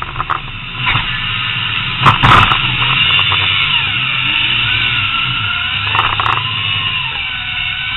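Demolition derby car's engine running steadily, heard from inside the gutted cab over general arena noise. A loud bang comes about two seconds in and a shorter one near six seconds.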